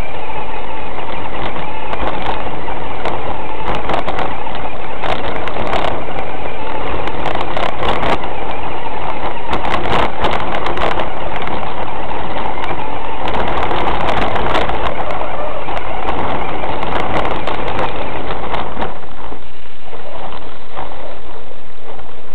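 Loud, distorted drive and tyre noise from a 1/6-scale RC Hummer running over gravel and dirt, picked up by a camera mounted on the truck, with many knocks and rattles from the bumps. It eases off about three quarters of the way through as the truck stops.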